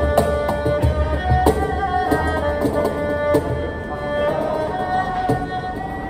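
Erhu playing a bowed melody over cajon hits: slaps and low thumps come often in the first second or two, then only now and then, leaving the erhu mostly on its own.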